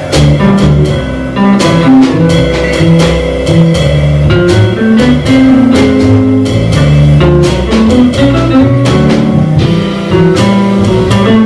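Live jazz trio of guitar, upright double bass and drum kit playing a blues, with walking bass notes under the guitar line and frequent cymbal and drum strokes.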